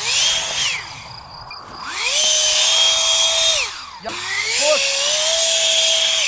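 Electric motor and propeller of a small RC paraglider, throttled up to a steady whine and back down three times: a short blip at the start, then two longer runs of about two seconds each.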